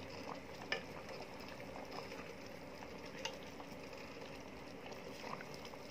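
Pot of chicken in coconut milk simmering with a faint, steady bubbling. A few small clicks and pops come as a plastic spatula prods the meat.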